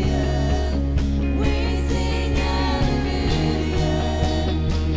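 A live worship band playing a contemporary worship song, with a steady bass, regular drum hits and a wavering melody line over it.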